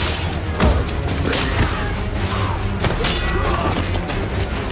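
Battle-scene soundtrack: music with a low steady drone under several sharp clashes and impacts of swords, axes and shields in close combat.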